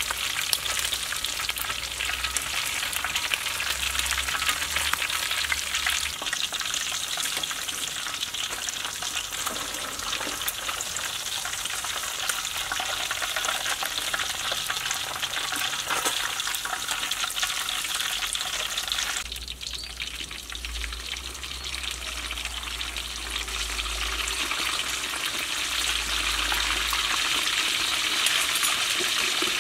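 Snakehead fish pieces deep-frying in hot oil in a wok: a steady, crackling sizzle that dips briefly about two-thirds of the way through. The fish has fried crisp.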